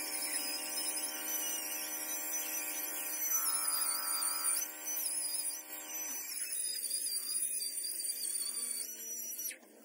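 Handheld stone polisher working the edge of a granite countertop, running with a steady high whine that cuts off about six seconds in.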